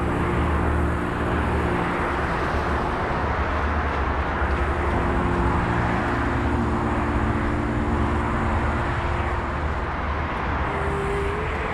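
A motor vehicle driving: a steady engine hum under an even rush of road and wind noise.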